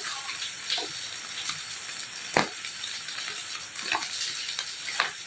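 Food sizzling steadily in a hot pan of oil, with a few sharp clicks of a utensil against the pan, the loudest about two seconds in.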